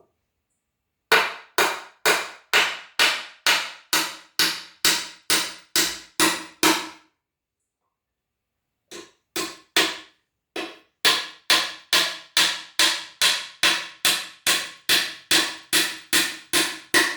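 Hammer driving nails into a wooden frame board by hand, at about two blows a second. Each blow rings briefly. The strikes come in two runs of a dozen or so each, with a pause of about two seconds between them.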